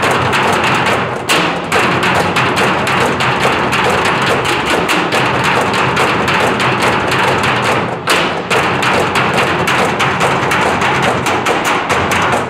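A percussion ensemble drumming with sticks on steel oil drums and plastic barrels, a fast, dense rhythm of strikes with short breaks about a second in and about eight seconds in.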